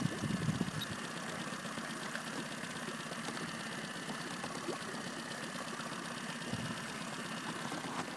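A small boat motor running steadily, a low hum with a faint thin whine on top.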